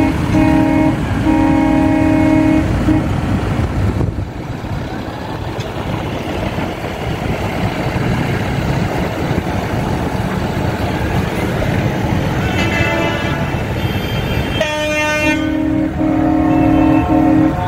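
Vehicle horns of a farmers' tractor protest convoy honking over the steady rumble of engines. Several long horn blasts sound in the first few seconds, then mostly engine noise, then from about twelve seconds on a string of overlapping horn blasts, with a deep long blast near the end.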